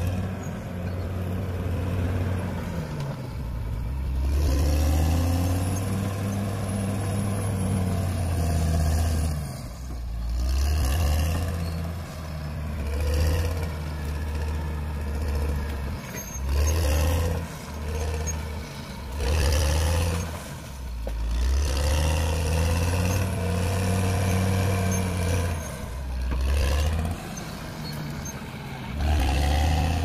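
CAT D6R XL crawler bulldozer's diesel engine working under load, its note rising and falling over and over as the machine pushes into brush and small trees.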